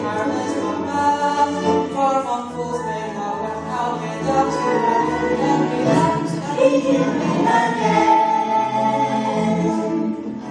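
Musical number: a group of voices singing together over instrumental accompaniment with a moving bass line.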